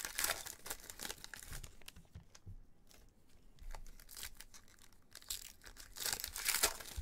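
Plastic trading-card pack wrapper crinkling and tearing as it is opened by hand, with cards sliding against each other. There is a burst of rustling at the start, quieter handling in the middle and a second burst near the end.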